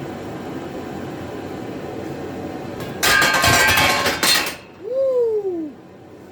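Loose metal hardware clinking and rattling in a loud burst lasting about a second and a half, around three seconds in. A short pitched sound follows, rising then gliding down.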